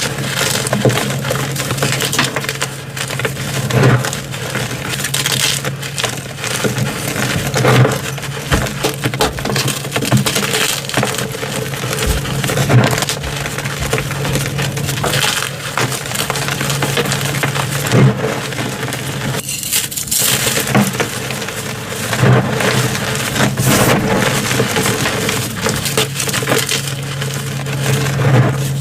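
Reformed gym chalk being crushed: continuous crisp, crunchy crackling, with louder snapping cracks every few seconds.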